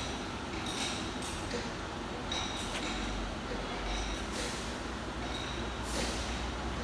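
Machinery-yard noise: a low steady engine rumble sets in about three seconds in, with scattered metal clinks and knocks.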